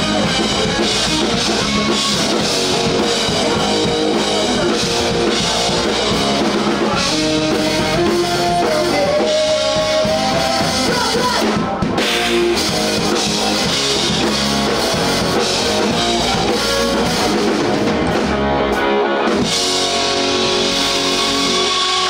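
Rock band playing live, drum kit and guitars loud and dense, with a brief stop in the middle before the band comes back in.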